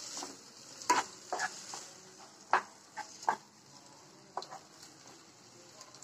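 Chopped onions and tomatoes sizzling in a non-stick pan as a spatula stirs them, with a steady frying hiss and sharp scrapes and knocks of the spatula against the pan about once a second, the loudest about a second in and at two and a half seconds.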